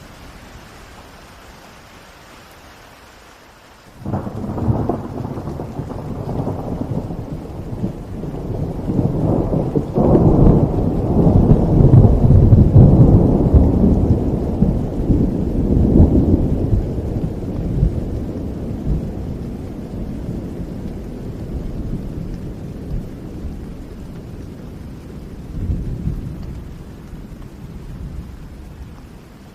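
Steady rain, then about four seconds in a clap of thunder breaks in and rolls on as a long low rumble, loudest in the middle and slowly dying away, with a last swell of rumble near the end.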